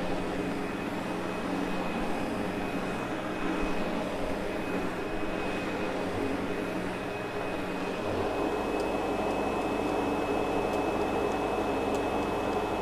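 Sebo X8 upright vacuum cleaner running steadily on carpet, its motor giving a constant hum with a thin high whine. The low part of the sound shifts slightly about eight seconds in.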